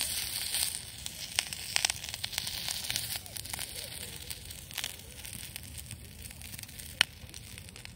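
Morel mushrooms frying in oil on a small iron griddle: a steady sizzle broken by scattered crackling pops, easing slightly in the second half. There is one sharp click about seven seconds in.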